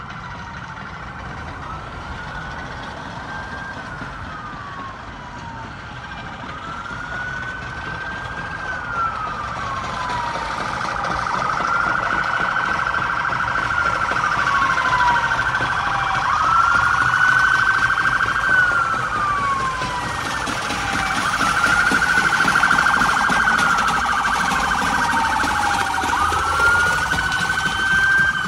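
Emergency vehicle siren on a slow wail, rising and falling about every four and a half seconds over a steady buzzing tone, growing louder as it draws nearer.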